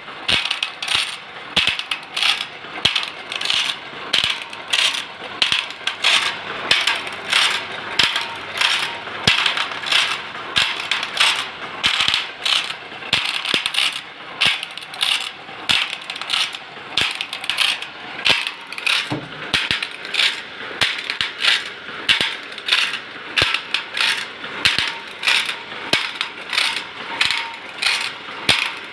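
Automatic saw-sharpening machine running: its grinding wheel dips into the saw blade tooth by tooth, each stroke a short metallic grind with clicks of the feed mechanism, in a steady rhythm of about three strokes every two seconds.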